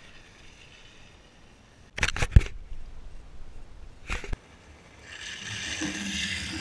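A cluster of sharp knocks about two seconds in and another just past four seconds, then longboard wheels rolling on a rough concrete road, growing louder as the rider comes toward the camera, cut off abruptly near the end.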